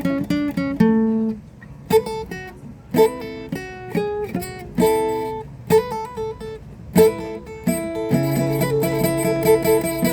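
Guitar being played: single plucked notes and short chords, each ringing and dying away, then a fast repeated picking figure over a held low note near the end.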